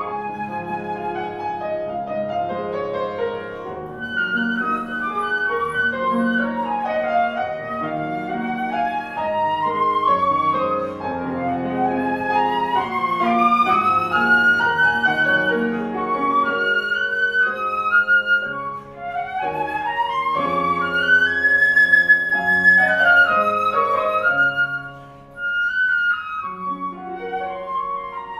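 Concert flute and Kingsburg grand piano playing a classical duet: the flute spins flowing melodic runs that climb and fall over a sustained piano accompaniment. A little past the middle the flute holds a long high note, and near the end the music briefly drops away before resuming.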